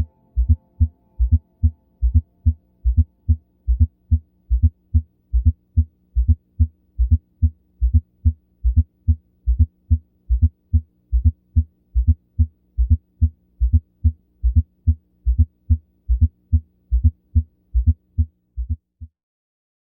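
Stethoscope recording of a heart with a fourth heart sound (S4): low heartbeat thuds in a steady repeating rhythm, the extra fourth sound falling just before the first sound in presystole. This is the presystolic gallop heard when a stiff ventricle resists atrial filling. A faint steady hum runs beneath, and the beats stop near the end.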